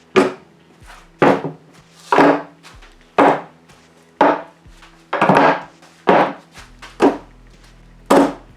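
A steady rhythm of sharp knocks, about one a second, over faint steady low tones.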